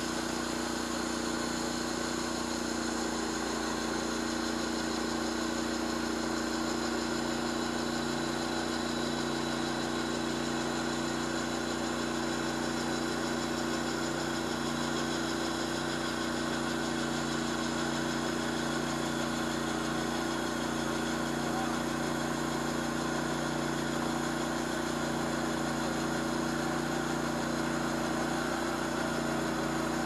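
Bandsaw mill's engine running steadily under load as its band blade saws through a 48-inch maple log.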